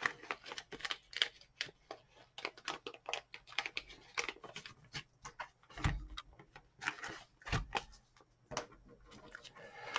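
Light, irregular clicks and taps of small objects being handled and moved, with two dull thumps about six and seven and a half seconds in.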